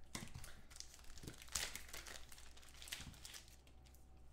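Plastic packaging crinkling in irregular crackles as trading cards are handled, dying away near the end.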